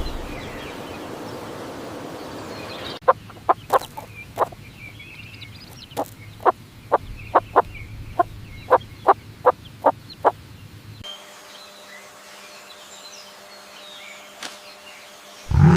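Edited animal sound-effect clips: a stretch of outdoor ambience, then a run of about fifteen short, sharp calls from an animal, a little under two a second, cut off abruptly, followed by a quieter stretch with a faint steady hum.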